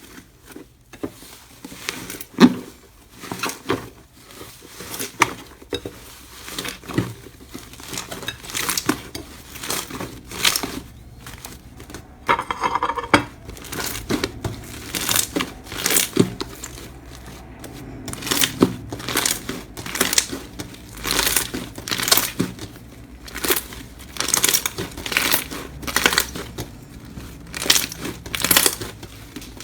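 Slime being squeezed and pressed by hand, giving crackling, popping sounds. In the second half the presses come in a steady rhythm, somewhat more than one a second.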